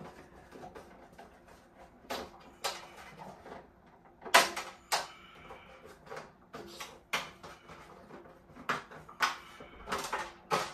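Irregular clicks and knocks from hands working on an ARRMA Notorious 6S 1/8-scale RC truck, the loudest about four seconds in and several more near the end.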